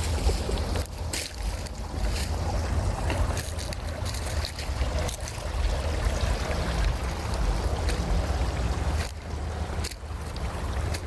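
Wind buffeting the microphone outdoors: a continuous, gusting low rumble with a wash of noise, broken by scattered short rustles or clicks.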